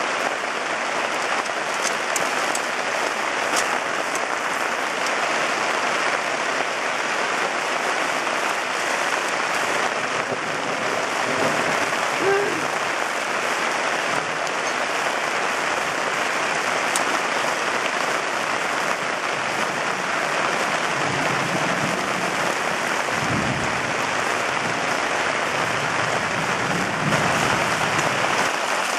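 Heavy rain pouring steadily onto the ground and tarps, a constant even hiss.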